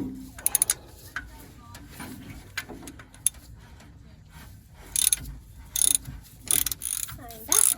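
Ratchet wrench clicking in several short bursts as it is swung back and forth on a bolt, with a few separate metal clinks earlier on.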